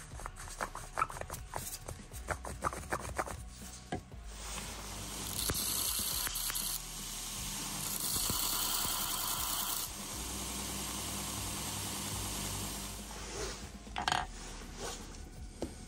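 Clicks and scrapes of a steel bolt being handled, then a belt sander running for about eight seconds, grinding down the threaded end of a steel bolt, loudest in its first half. A few knocks come near the end.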